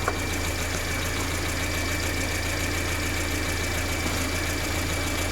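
Peugeot 407's EW10J4 2.0-litre four-cylinder petrol engine idling steadily, with a thin steady high whine over it and one small click about a tenth of a second in.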